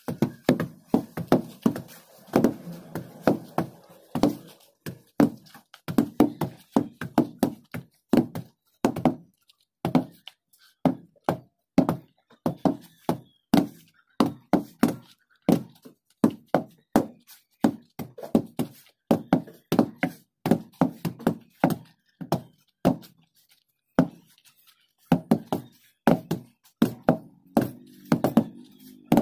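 Wooden hand tampers, heavy log rammers with handles, being dropped again and again onto loose soil to compact it, several worked at once: a stream of dull thuds, about two or three a second in an uneven rhythm, with a brief pause about three-quarters of the way through.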